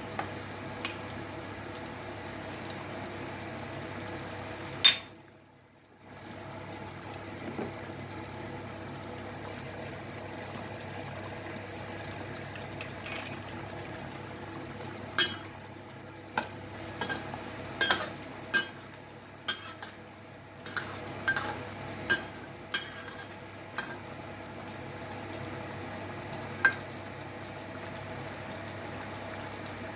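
A metal ladle stirring chicken and potato curry in a wok, with many sharp clicks and taps of the ladle against the pan, mostly in the second half. Under it is a steady hiss from the simmering curry. The sound drops out briefly about five seconds in.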